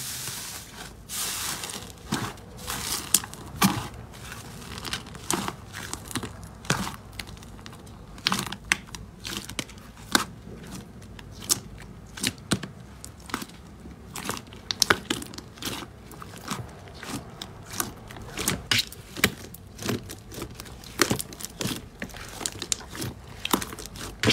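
Hands squeezing, pressing and stretching slime in a plastic tub, making an irregular run of sharp, wet pops and crackles, several a second, over a soft squishing rustle.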